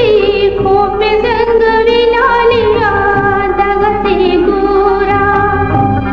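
Background music: a slow melody of long, wavering held notes.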